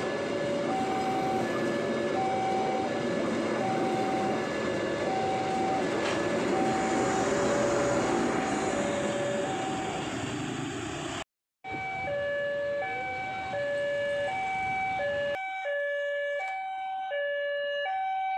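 Railway level-crossing warning alarm sounding two alternating electronic tones, high and low, about half a second each. For the first eleven seconds a passing train rumbles under it. After a brief break the alarm carries on, and the train noise falls away a few seconds later.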